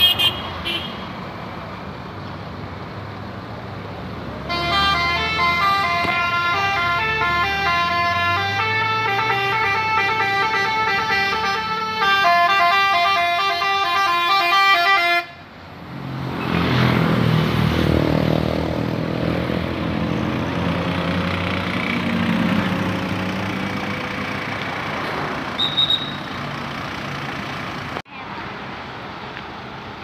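Tour bus's basuri-style telolet horn playing a tune of short, quickly changing notes for about ten seconds, then cutting off. It is followed by a bus engine pulling away, rising in pitch as it accelerates.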